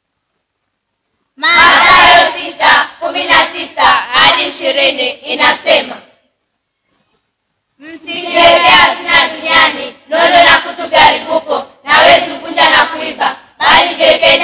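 Group of children singing together in unison, in two stretches of a few seconds each with a short, abrupt gap between them.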